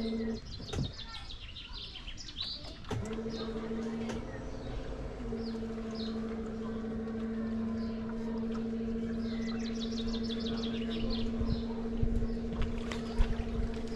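Small birds chirping in quick runs of high notes, over a steady low electric-sounding hum that breaks off briefly early on and then holds a constant pitch; a couple of sharp knocks near the start.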